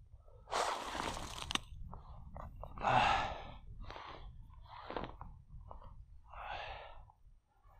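Crunching of snow and slushy ice at an ice-fishing hole as a bare hand reaches into it and pulls up a tip-up's line, in a series of short scrapes.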